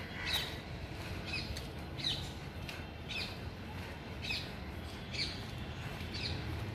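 LHB passenger coaches rolling slowly past with a steady low rumble. Over it, a short, high chirp repeats about once a second.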